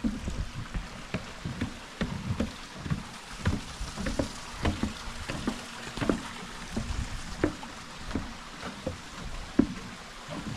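Footsteps of a hiker walking along a mountain trail, about two steps a second, over a steady hiss.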